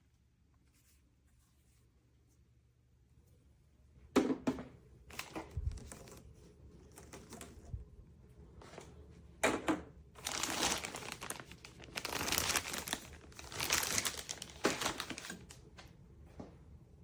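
Packaging being handled, crinkling and tearing in irregular bursts that begin about four seconds in and are loudest in the second half.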